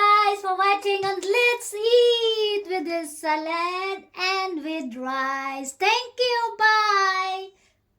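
A high voice singing a short melody in held, gliding notes, with brief breaks between phrases; it stops shortly before the end.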